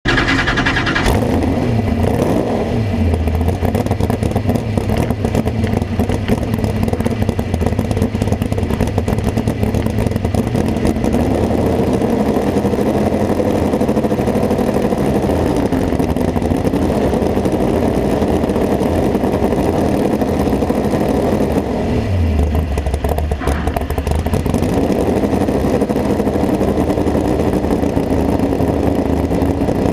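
Open-exhaust engine of a modified mini pulling tractor running loud and lumpy at idle, blipped up in revs a few times as it is driven slowly up to the start line.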